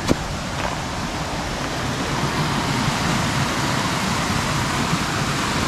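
Mountain creek rushing over rocks in small cascades, a steady rush of water that grows slightly louder toward the end, with one sharp knock right at the start.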